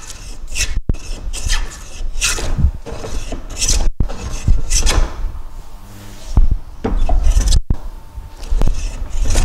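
Hand plane cutting along the edge of a wooden board in repeated rasping strokes, each peeling off a shaving. These are the slow final passes as the edge is planed down to the gauge line.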